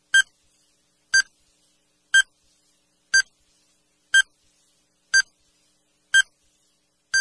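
Countdown timer beeping once a second: eight short, identical high beeps, evenly spaced, ticking off the seconds.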